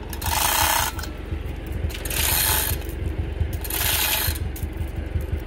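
Ferguson TO35 tractor engine running steadily with a fast, even low pulsing. Three short bursts of hiss come over it, about a second and a half apart.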